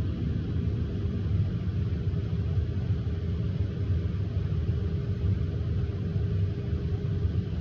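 Steady low rumble with a faint, even hum above it, like background machinery running.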